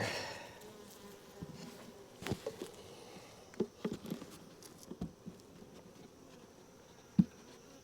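Honeybees of a swarm buzzing steadily as they are worked into a hive box, with a few light knocks from handling the hive, the loudest about seven seconds in.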